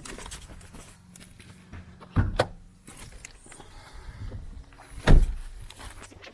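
Two dull thumps about three seconds apart, with faint rustling and handling noise between them.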